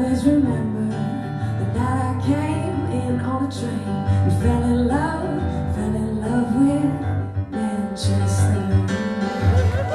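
A woman singing a ballad live while accompanying herself on a Nord Electro 3 stage keyboard, with sustained low notes and chords under the vocal.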